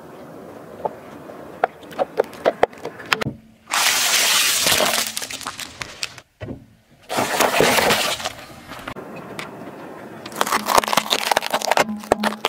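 Car tyre rolling over and crushing plastic bowls and other objects on asphalt. It starts with a run of sharp cracks, then two long stretches of loud crunching and crackling with a short break between them, and dense crackling near the end.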